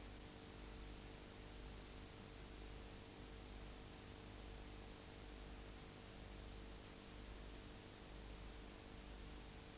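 Steady hiss with a low hum underneath, unchanging throughout, with no distinct sound events.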